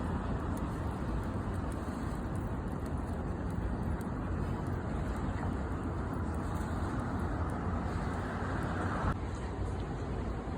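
Steady city traffic noise with a low rumble; its higher part dims about nine seconds in.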